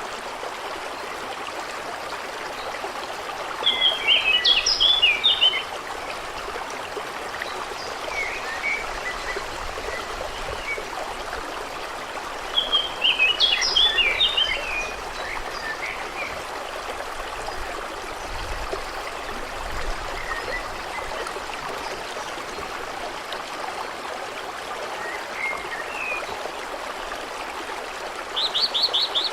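A stream running steadily, with a bird singing a short burst of song twice and a few faint chirps in between.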